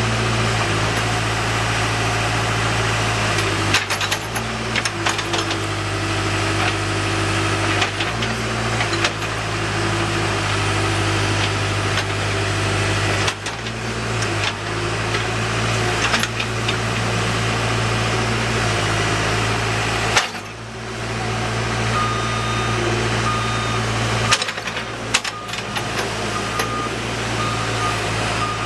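A Case 580M Series 2 backhoe loader's diesel engine running steadily at an even speed, with a few brief knocks and several abrupt breaks in the sound.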